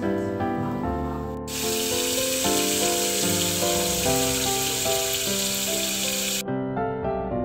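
Tap water pouring onto leafy greens in a stainless-steel colander in a sink, starting after about a second and a half and cutting off abruptly about a second before the end. Piano background music plays throughout.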